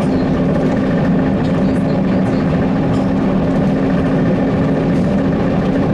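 ZiU-682G trolleybus running along a road, heard from inside the passenger cabin: a steady low hum over continuous road and tyre noise.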